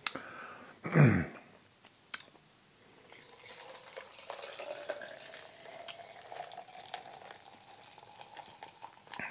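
Sparkling apple-grape juice poured from a glass bottle into a glass jar of ice, the pouring tone slowly rising in pitch as the jar fills. A short, loud sound about a second in, before the pour starts.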